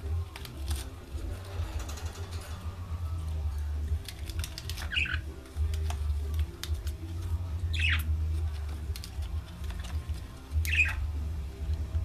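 Caged budgies giving three short chirps a few seconds apart, each falling in pitch, among small clicks and taps.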